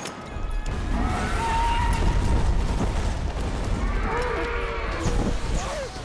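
Film monster sound effect: two drawn-out, wavering calls, about one second in and again about four seconds in, over a deep continuous rumble, mixed with the film's score.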